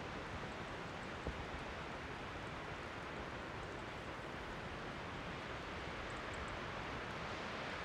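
Steady, even rushing outdoor noise, with a faint low bump about a second in and a few faint high ticks around six seconds in.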